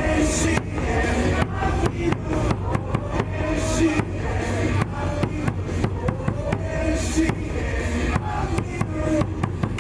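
Baseball stadium loudspeaker music, a batter's walk-up or cheer song, with the crowd clapping or beating thundersticks along in a sharp, frequent beat.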